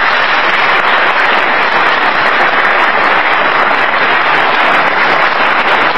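Audience applauding with steady, even clapping.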